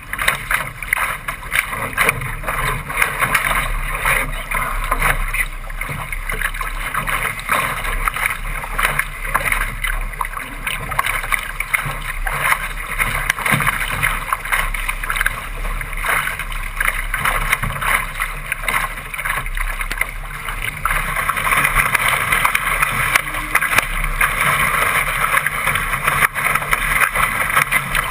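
Water rushing and splashing along the hull of a Laser sailing dinghy moving fast under sail, a dense crackling hiss of spray and chop. It grows louder about three-quarters of the way through as the boat heels harder and throws more spray.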